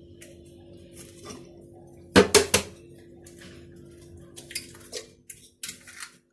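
Eggs being cracked and kitchenware clinking against a mixing bowl: a quick cluster of three sharp knocks about two seconds in, then lighter clicks and clinks, over a faint steady hum.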